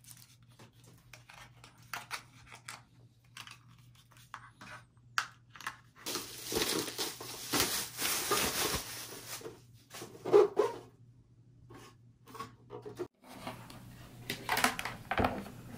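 Plastic packaging wrap crinkling and rustling for about three seconds in the middle as an electronic unit is unwrapped. Before and after it come scattered light clicks and knocks of plastic parts and cables being handled.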